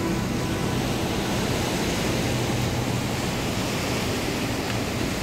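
Ocean surf: a steady, even rush of waves breaking and washing along the shore.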